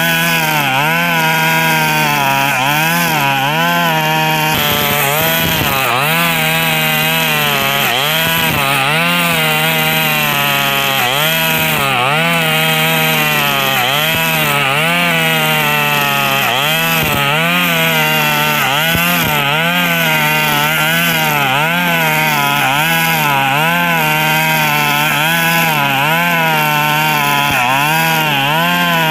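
KNC 4400 two-stroke brush cutter spinning nylon trimmer line at high revs, its pitch dipping and recovering every second or so as the line bites into tall grass. Its exhaust has rusted through with small holes, which makes it very loud.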